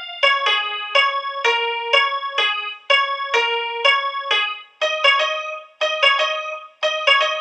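Background music: a keyboard melody of single struck notes, about two a second, each ringing and fading before the next.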